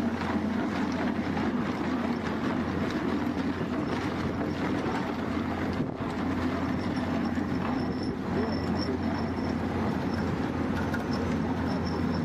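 Excavator running an ERKAT ER 3000 hydraulic transverse drum cutter as it grinds into rock salt: a steady mechanical drone, with a brief dip about halfway through.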